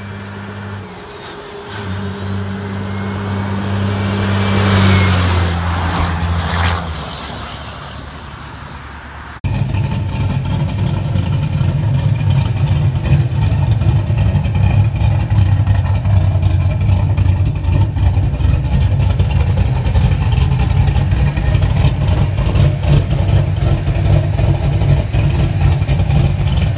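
A truck engine running on a road, swelling to its loudest about five seconds in as it draws close, then fading. About nine seconds in it cuts to a lifted pickup's engine running at close range: a loud, steady, low rumble with a rapid pulsing to it.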